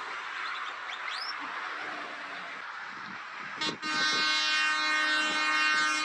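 Highway traffic noise, then about three and a half seconds in a truck's air horn gives a short blip followed by one long, steady, loud blast.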